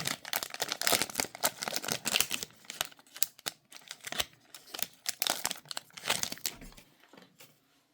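Trading-card pack wrapper being torn open and crinkled: a dense, irregular run of crackles that thins out and stops near the end.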